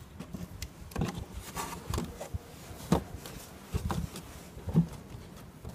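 Hard plastic engine cover being set down and pressed onto its mounts: a series of about five sharp plastic knocks and clicks, roughly a second apart.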